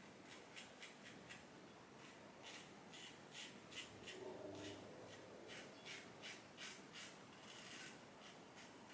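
A&E B1 Lancer safety razor scraping through stubble in short strokes, about two a second, faint: touch-up strokes on the final cleanup pass of the shave.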